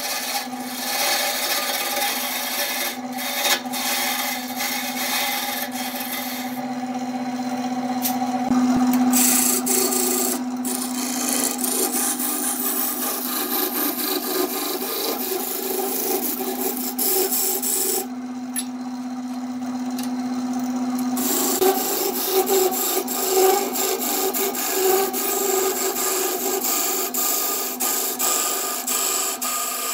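A hand-held turning chisel scrapes and cuts a spinning glued-up vase of different-coloured woods on a Burt wood lathe, over the steady hum of the lathe motor. The cutting noise drops out twice, briefly about seven seconds in and for about three seconds around eighteen seconds in, leaving the motor hum on its own.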